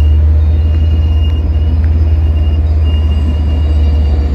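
Long Island Rail Road DM30AC dual-mode diesel locomotive idling, a loud, steady low rumble.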